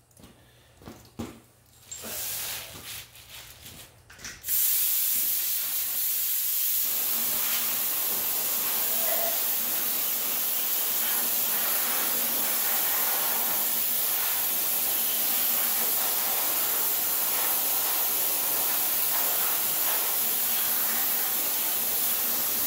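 Air-driven primer spray gun spraying water onto an engine block as a makeshift pressure washer, rinsing off oven-cleaner degreaser. A few short spurts come first, then a loud, steady hiss from about four and a half seconds in.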